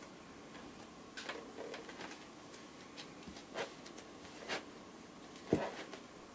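A cat's paws and claws tapping and scraping on a plastic basin as it climbs in and settles, a handful of soft clicks and knocks with a louder thump near the end.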